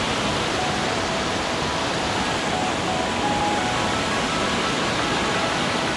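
Mountain stream rushing over boulders in rapids just below a footbridge, a steady, even roar of whitewater.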